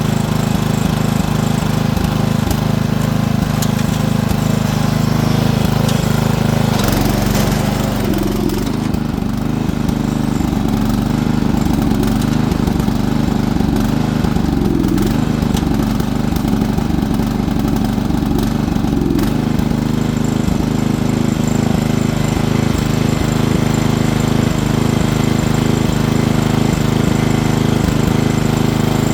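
Small petrol engine running steadily under load, its pitch changing about seven seconds in and again near the twenty-second mark.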